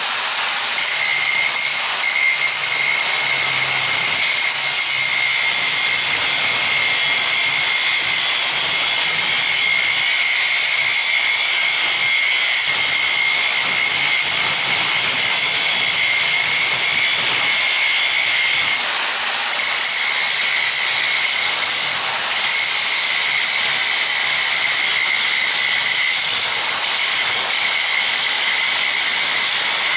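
Angle grinder running continuously on steel: a steady high whine over the hiss of grinding, its pitch shifting slightly a little after halfway as the load changes.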